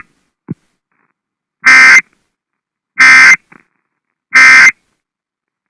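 Emergency Alert System end-of-message data bursts: three identical short, loud, harsh digital squawks about 1.3 seconds apart, the SAME end-of-message code that closes an alert broadcast. A short low blip comes about half a second in.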